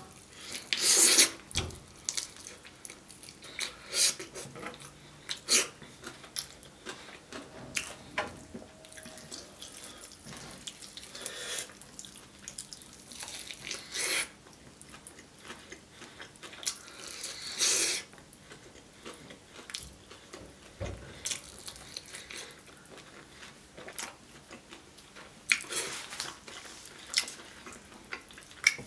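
Close-miked wet eating sounds: chewing, lip smacks and sticky clicks from eating sauce-coated Korean fried chicken by hand, with several louder smacks scattered through.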